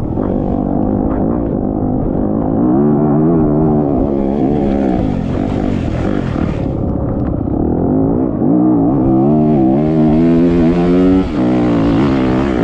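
Off-road race vehicle engine running hard under load, its revs climbing and holding through two long pulls, the second cutting off sharply near the end, with a hiss over the higher revs.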